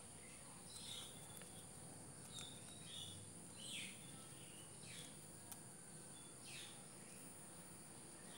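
Near silence with a faint, steady, high-pitched insect drone, like crickets, and about six short, faint falling squeaks scattered through it.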